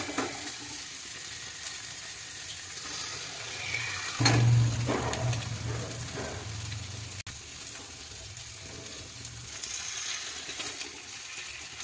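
Onion-tomato masala sizzling steadily in a steel kadai as raw eggs are cracked into it. A low hum with a few soft knocks comes in about four seconds in and fades by about seven seconds.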